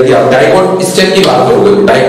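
A man speaking.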